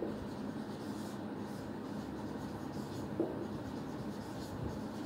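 Marker pen writing on a whiteboard: the tip rubbing and scratching faintly as words are written out.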